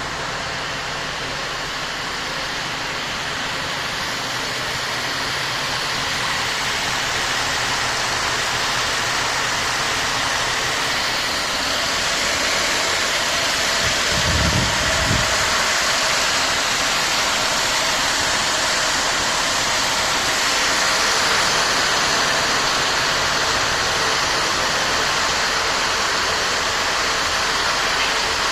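Steady running noise of a vehicle, growing slightly louder over the first half, with a brief low thump about halfway through.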